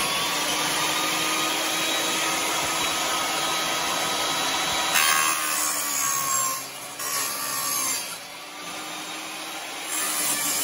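Ryobi 10-inch table saw running with a freshly fitted replacement blade, then rip-cutting a wooden board from about five seconds in. The motor's pitch drops and its level rises and falls as the blade takes the load.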